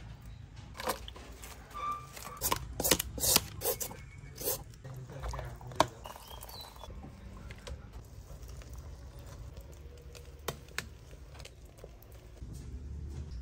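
Food-preparation handling sounds: a quick run of sharp clicks, taps and scrapes over the first six seconds, then a quieter steady background with a few isolated clicks.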